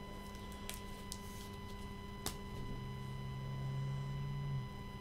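Steady low electrical hum in a small room. A single faint click comes a little over two seconds in, and a low steady tone sounds from about halfway to near the end.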